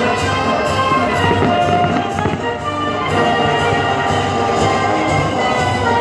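Orchestral music with brass, playing steadily.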